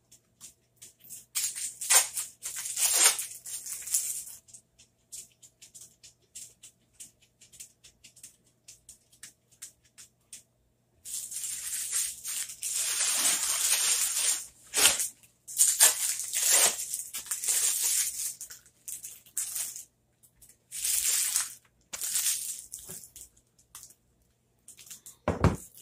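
Plastic wrapping crinkling and rustling in irregular bursts, with small clicks and taps between, as slices of white American cheese are unwrapped and laid out. A single dull thump near the end as the glass casserole dish is handled.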